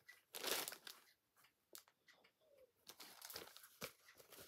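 Soft rustling and crinkling of a craft project bag being handled. The loudest rustle comes about half a second in, then scattered small rustles and clicks.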